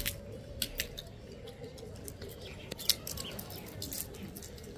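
Gray langurs cracking peanut shells with their teeth and chewing: a scatter of sharp, irregular cracks and crunches, the loudest pair a little under three seconds in.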